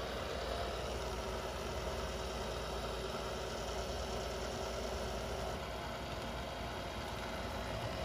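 Robot vacuum running steadily as it drives back to its dock, its suction fan and brushes making an even whir with a low hum and no abnormal noise.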